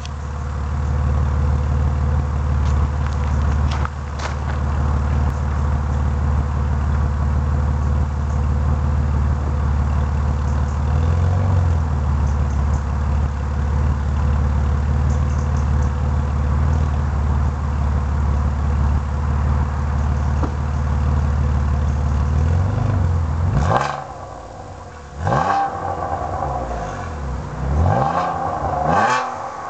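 Alfa Romeo 147 GTA's 3.2-litre V6 idling steadily through a Wizard aftermarket exhaust, heard from behind at the tailpipes. Near the end it is revved in several quick throttle blips, each rising and falling back toward idle.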